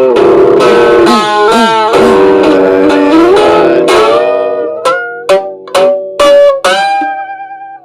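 Instrumental music with no singing: a melodic lead line with sliding, bending notes over held chords, breaking into short separate notes about halfway through, the last note held and fading.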